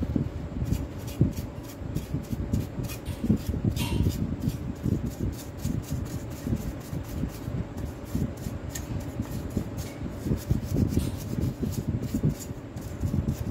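Bristles of a paintbrush scrubbing the plastic housing of a cordless drill in quick, irregular strokes, over a faint steady hum.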